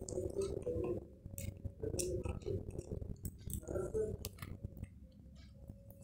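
Budgerigars in a cage making scattered sharp clicks and cracks, typical of beaks husking seed, under a low murmur of voices.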